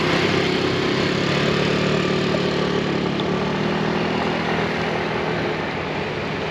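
Boat engine running steadily at low speed, its hum slowly fading.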